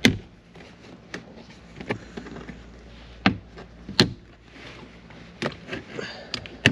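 Plastic dash trim panel being pulled off by hand, its retaining clips snapping loose: a series of sharp snaps and clicks, the loudest right at the start and about four seconds in.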